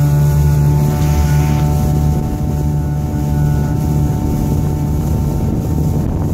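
Small speedboat under way at speed: the engine drones steadily under the rush of water and wind on the microphone.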